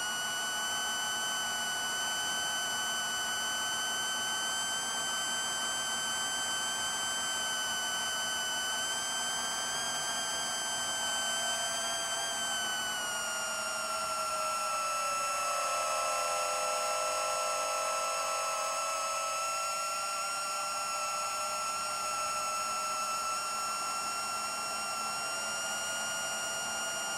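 Long-range FPV quadcopter's brushless motors (Racerstar 2514 1498KV) and 7-inch propellers whining steadily in flight. About halfway through, the whine sags lower in pitch for several seconds, then climbs back.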